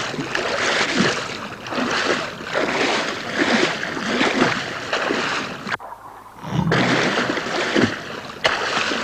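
Water splashing and churning in repeated surges as great white sharks thrash at the surface, with a brief drop about six seconds in.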